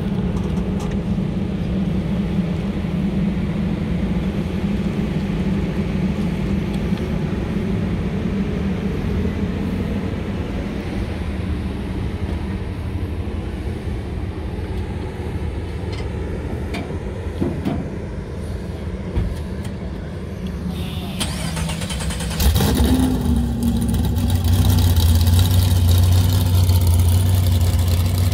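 A vehicle engine hums steadily; about 22 seconds in, an engine starts with a quick rising rev and settles into a louder, deeper steady idle, typical of the COPO Camaro's supercharged V8 drag engine.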